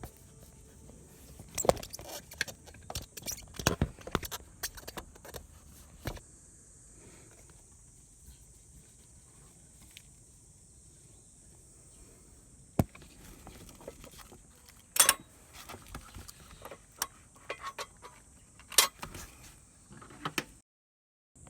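Intermittent metallic clinks and knocks of hand tools and metal parts being handled, scattered and irregular, over a faint steady high hiss.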